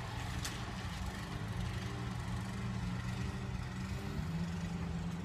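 A motor runs steadily with a low hum, its pitch stepping down slightly about four seconds in.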